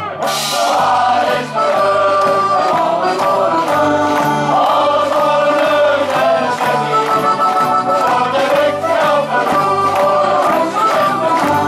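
Male shanty choir singing a sea shanty, a soloist on a microphone leading the choir, over a steady beat of about two strokes a second.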